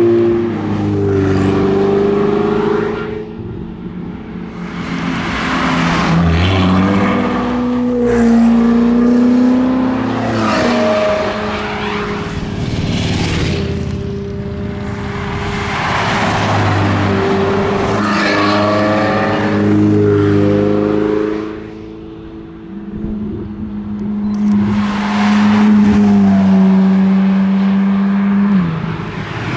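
Several Ferrari sports cars, among them a V8 F430 and a V12 599, accelerating past one after another, each engine revving up in rising climbs with drops between gears. The sound swells and fades as each car goes by.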